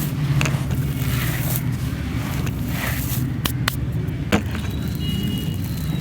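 Dry crumbly lumps being crushed by hand, with soft crackling and a few sharp snaps a little past the middle, over a steady low hum.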